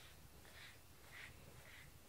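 Faint, soft strokes of a pet brush through a cat's fur, about two strokes a second.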